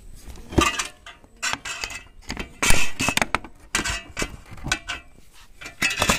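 Metal parts clinking and knocking as a bolt is worked through a motorcycle's frame mounting by hand, a quick irregular run of clanks with a short metallic ring. The loudest clank comes about two and a half seconds in.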